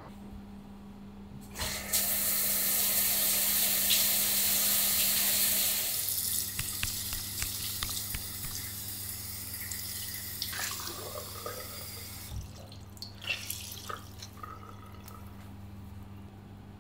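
Water running from a tap into a bathroom basin, splashing as a towel is soaked under the stream. The flow is loudest for the first few seconds, then softer, with scattered splashes and drips near the end.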